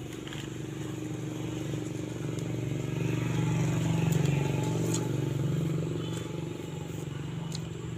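A motor vehicle engine running, growing louder to about halfway through and then fading again, with a few light snaps and rustles of leaves over it.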